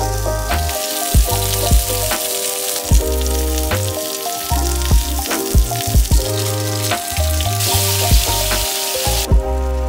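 Chicken and green-onion yakitori skewers sizzling as they fry in a nonstick pan. The sizzle grows louder near the end, when the sauce glaze is bubbling in the pan, then stops abruptly. Background music with a bass line and a steady click plays throughout.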